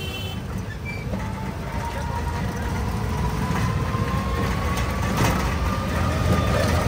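Road and traffic noise heard from a moving e-rickshaw: a dense low rumble, with a thin whine that rises slowly in pitch from about a second in, the whole growing gradually louder.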